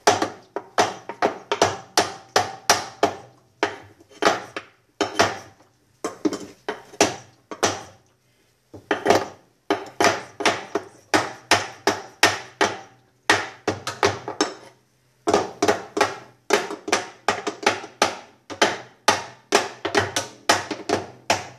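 Small hammer knocking repeatedly on a GE washing machine's wash basket assembly, tapping from below upward to loosen a stuck part. The blows come about two to three a second in runs, with short pauses between runs.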